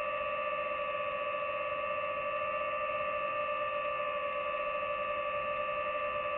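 DJI FPV drone's motors and propellers whining at one steady pitch while it holds its throttle.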